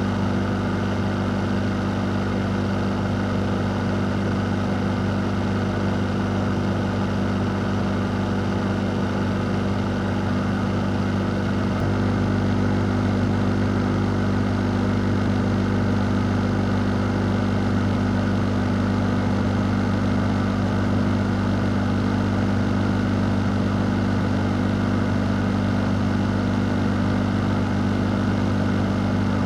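A fan running steadily: an even rush of air over a low motor hum, stepping up slightly in level about twelve seconds in.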